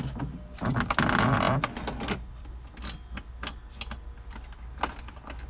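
A bunch of keys on a ring jangling as they are handled for about a second, then scattered sharp metal clicks as a key is worked at a glove box lock cylinder.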